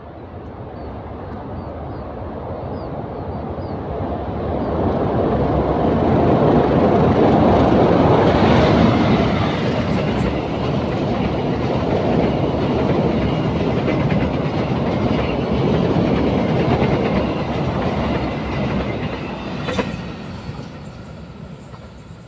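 A train passing by, its rumble and wheel clatter building over about six seconds, staying loud for about ten, then fading away. A single sharp click sounds near the end.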